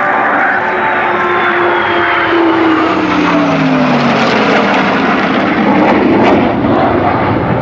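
P-51 Mustang, F-22 Raptor and F-15E Strike Eagle flying past in formation, propeller engine and jet noise together. The pitch drops steadily as they go by, and the noise peaks about six seconds in.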